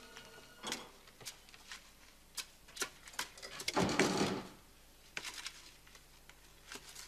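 Hand trowel digging and scraping potting soil in a plastic bucket: irregular scrapes and taps, with one longer, louder scrape about four seconds in.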